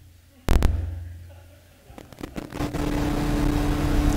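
Electronic sonification from the Listening Back browser add-on, sounding cookies as they are set or updated while a web page loads. A sharp hit comes about half a second in, with a low tone fading over about a second. From about two seconds a dense crackling texture over a steady low tone builds up.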